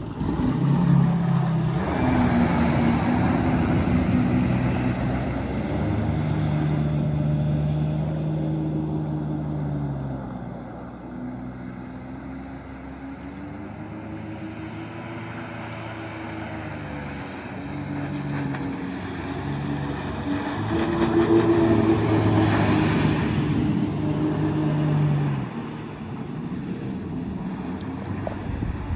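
2007 Yamaha FX140 WaveRunner's four-stroke four-cylinder engine running under throttle, its pitch rising and falling with the throttle and turns. It fades as the craft moves off, grows louder again about twenty seconds in as it runs back past, then drops off sharply near the end.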